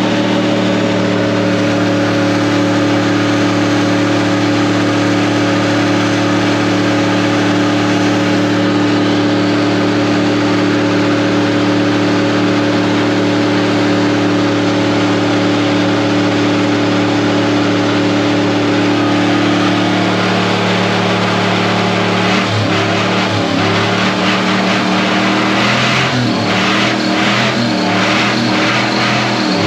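A 6.0 Vortec V8 pickup engine held at high, steady revs in a stationary burnout, the rear tire spinning. After about twenty seconds the revs drop and rise unevenly.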